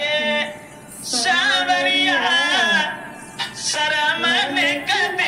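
A woman singing a devotional song solo without accompaniment, long held notes with a wavering pitch, breaking off briefly twice for breath.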